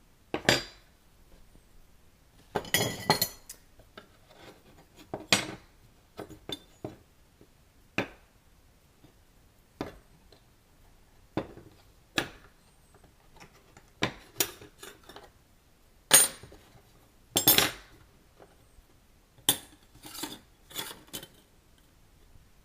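Laser-cut metal belt-buckle pieces handled and set down on a hard surface: irregular sharp clinks and clatters, some ringing briefly, the loudest about two-thirds of the way through.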